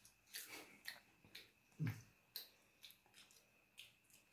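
A small child chewing a crunchy snack stick: faint, irregular crunching clicks, with one slightly louder, duller thud about two seconds in.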